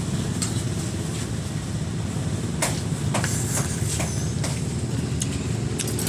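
A spoon and fork clinking against a plate of noodles, a string of sharp short clicks through the second half, over a steady low rumble.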